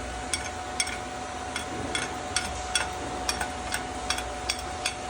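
Chipping hammer tapping slag off a freshly laid 7018 stick-weld bead on steel plate: about a dozen sharp metallic taps at an even pace, two or three a second, over a steady background hum.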